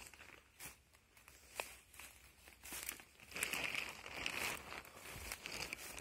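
Footsteps through forest grass and leaf litter: a few scattered twig cracks, then a longer spell of rustling and crunching undergrowth from about three and a half seconds in.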